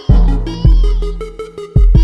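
Background electronic dance music with a heavy bass kick and a repeating synth melody.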